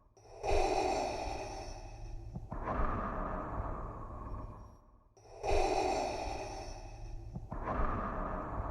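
Darth Vader's respirator breathing sound effect: a masked, mechanical breath made through a scuba regulator, in a steady rhythm. Two full cycles, each a hissing inhale of about two seconds followed by a longer exhale, with a new inhale starting about five and a half seconds in.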